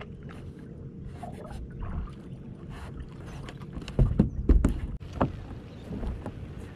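Hollow thumps and knocks on a small boat's deck as a hooked fish is swung aboard, loudest in a cluster about four seconds in, over a steady low rumble of wind and water.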